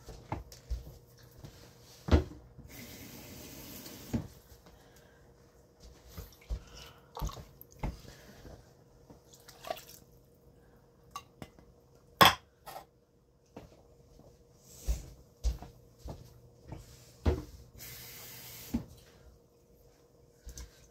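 Kitchen tap running briefly into empty tin cans, twice, with knocks and clinks of the cans between. Watery soup leftovers are poured from a can into a pot; a sharp clank about 2 s in and again about 12 s in.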